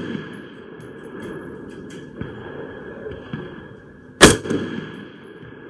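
A single shot from an AR-15 rifle firing .223 ammunition about four seconds in: one sharp crack that dies away over about half a second.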